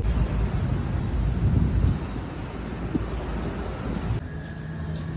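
Vehicle travel noise: a low road rumble with wind buffeting the microphone. About four seconds in it gives way to a quieter, steady engine hum.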